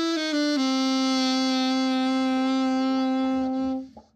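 Freshly overhauled Yamaha YAS-62 alto saxophone played solo: a couple of short notes stepping down, then one long, steady low note that stops shortly before the end.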